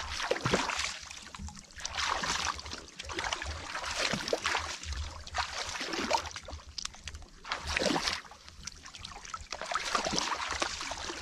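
Shallow muddy water splashing and sloshing around a person's legs and hands as he wades and gropes through it, in irregular bursts every second or two.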